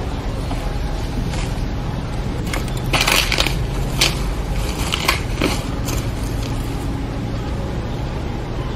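Steady low outdoor rumble, with a run of sharp crunching crackles about three to six seconds in, loudest near the start of the run.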